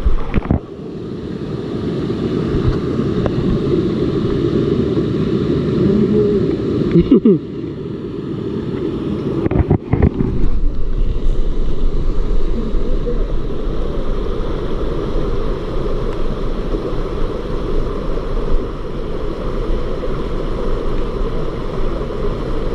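Steady rushing of a waterfall and fast stream close by, with a few sharp knocks about 7 and 10 seconds in.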